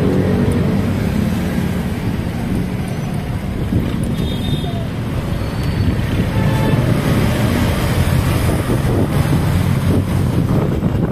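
Wind buffeting the microphone over steady engine and road noise, riding along in traffic.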